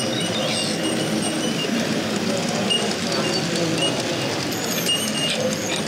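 A model train running along a layout's track, over the steady hubbub of a busy exhibition hall.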